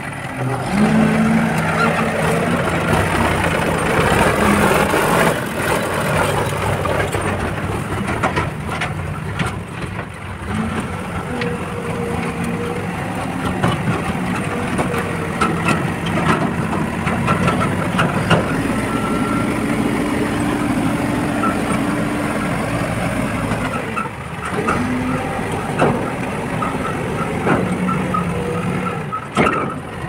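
Diesel engines of a backhoe loader and a farm tractor running steadily, their pitch shifting a little as they work, with scattered short knocks and clanks. The sound changes abruptly a few times.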